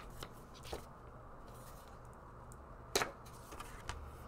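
Faint handling sounds while refill paper is taken out off to the side: a few light taps, with one sharper click about three seconds in, over a low steady hum.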